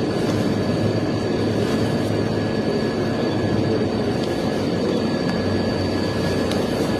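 Steady low engine rumble with a faint constant high whine, unchanging throughout.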